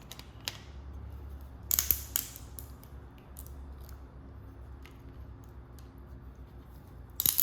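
Locking pliers clicking and scraping against a part on a circuit board as it is worked to pry it off. There is a cluster of sharp metal clicks about two seconds in, another near the end, and scattered single clicks between.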